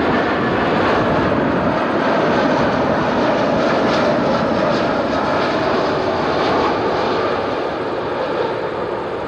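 Cathay Pacific Airbus A340's four jet engines passing low on landing approach, gear down: a loud, steady rumble that eases off slightly near the end.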